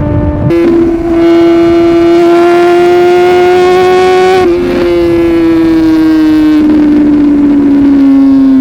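Superbike engine running hard at high revs, its pitch climbing steadily in one gear, then dipping briefly about four and a half seconds in and easing down slowly after.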